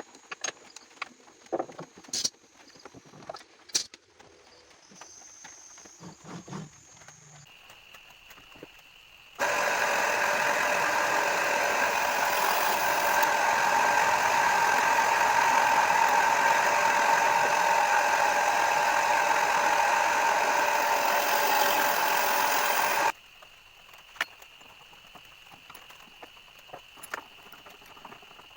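Homemade table saw running steadily for about fourteen seconds with a steady motor-and-blade whine, switching on and cutting off abruptly. Before it come a few light clicks and knocks.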